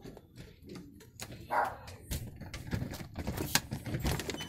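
A screen door being opened: a run of clicks and rattles from its latch and frame, getting busier from about two seconds in.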